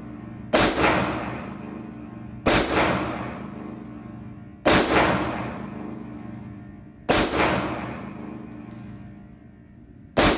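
Colt 6920 AR-15 rifle in 5.56 mm firing five single shots about two seconds apart in an indoor range, each a sharp crack with a long echoing decay. The last shot comes right at the end. The rifle, left uncleaned through over 1,300 rounds, keeps cycling without a stoppage.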